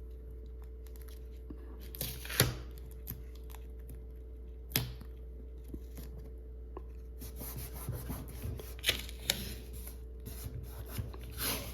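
Blue painter's tape being handled and laid onto a flatbed scanner's glass: a few sharp clicks and light rustling and rubbing, busier in the second half, over a faint steady hum.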